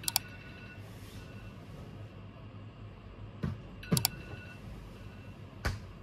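Steady low room hum with several sharp clicks: a double click at the start, a softer click and another double click about three and a half to four seconds in, and a single click near the end.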